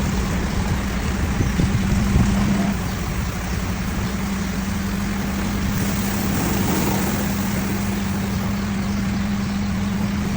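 Automatic bus wash in operation: a steady low hum under an even rush of noise from the washing machinery and water.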